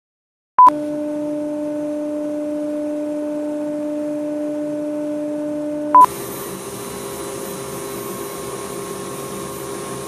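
CNC router spindle running steadily with a high whine, between short electronic beeps. After the second beep, about six seconds in, the spindle whines at a higher pitch over a louder airy hiss.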